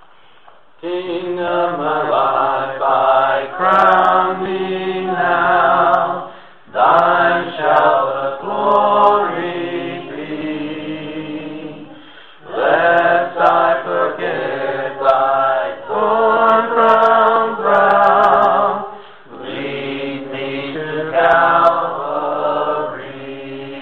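A group of voices singing a hymn in harmony, in long sung phrases with short breaks between them, starting about a second in.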